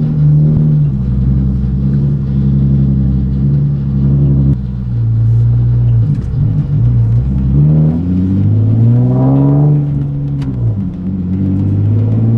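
Turbocharged Nissan 370Z's 3.7-litre V6 under way with its new downpipes, heard from inside the cabin: steady revs at first, easing off about four seconds in, then revving up about eight seconds in and dropping back about two seconds later.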